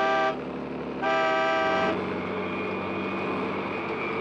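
A vehicle horn sounds twice: a short blast at the start and a longer one of about a second, starting about a second in. After that, the steady engine and road noise of a moving vehicle.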